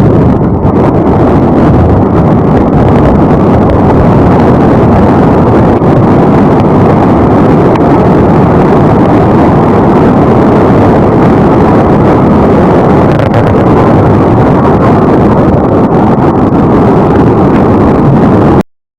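Loud, steady roar of a river in flood, a torrent of fast water rushing past; it cuts off suddenly near the end.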